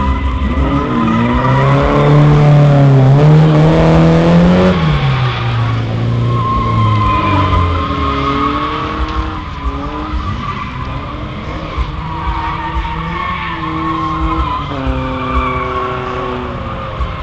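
Drift car's engine revving up and down with tyres squealing as it slides sideways; loudest in the first five seconds, then a little further off with more rises and falls in the revs.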